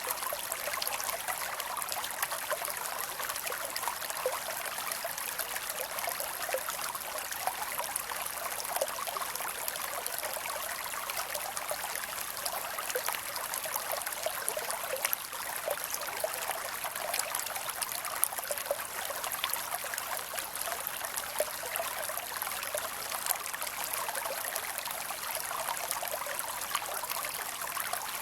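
A creek running over rocks, with a steady rush and small trickles and splashes.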